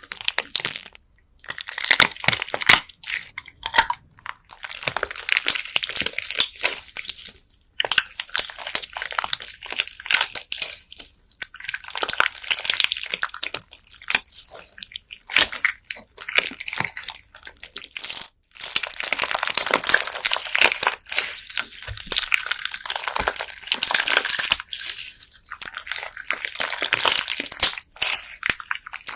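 Hands squeezing, folding and pressing a slime packed with small plastic beads: dense crunchy crackling and clicking in runs, broken by several short pauses.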